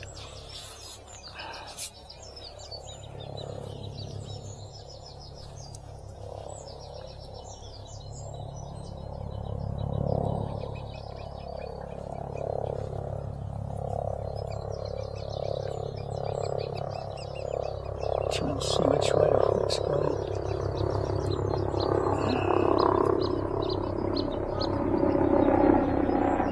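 An aircraft's engine droning with a fast pulsing beat, growing steadily louder over the second half as it approaches. Small birds twitter now and then.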